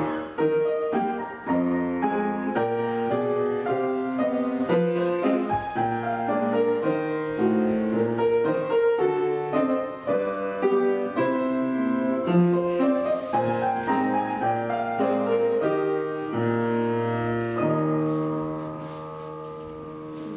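Piano playing classical-style accompaniment for ballet barre exercises, with chords and melody in a steady pulse. The playing dies down over the last couple of seconds.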